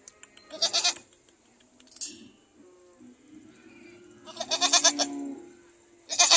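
Goats bleating: three loud, wavering bleats, the longest about four seconds in and lasting around a second, with another cut short near the end.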